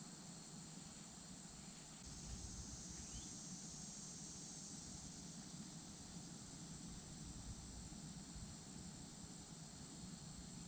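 Faint, steady high-pitched chorus of insects, with no breaks.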